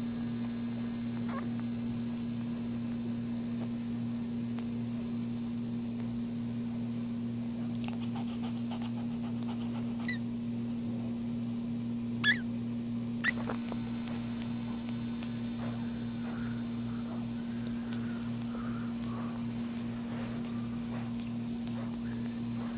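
Steady low electrical hum, with short high squeaks from newborn puppies nursing, the two loudest close together about halfway through and fainter little cries after.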